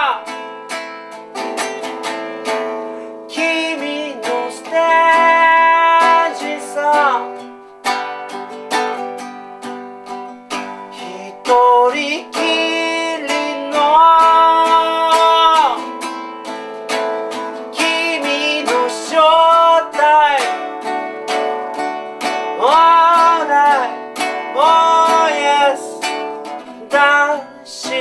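A man singing over a strummed nylon-string classical guitar, holding long notes that often slide down at their ends.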